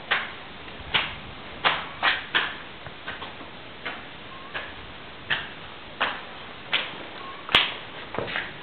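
Sharp knocks repeating at an uneven pace, roughly one every half second to a second, each with a short echoing tail; the loudest and sharpest comes near the end.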